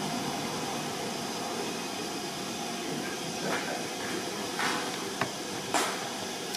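Steady hiss of escaping steam, as from a steam locomotive standing at the station, with several short knocks in the second half.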